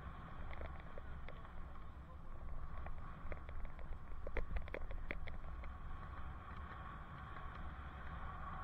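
Riding noise picked up by a bicycle helmet camera: a steady wind rumble on the microphone and road hum. A cluster of light clicks and rattles comes about three to five seconds in.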